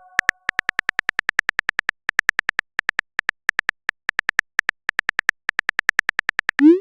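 Rapid electronic typing blips from a texting-story animation: short beeps at one high pitch, about six a second in uneven runs, as a message is typed out letter by letter. A short rising swoop near the end, a message-sent sound.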